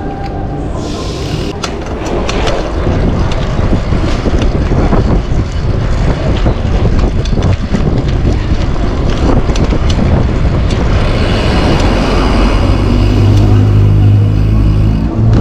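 Wind buffeting an action camera's microphone on a fast downhill bicycle ride, with the wheelie bike's tyres rumbling over paving and frequent rattling knocks from bumps. From about twelve seconds in, a low steady engine hum from nearby traffic joins in.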